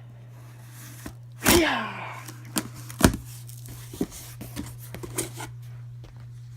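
Packaging of new tool batteries being opened and handled: a sharp knock about three seconds in among several smaller clicks, taps and rustles, over a steady low hum.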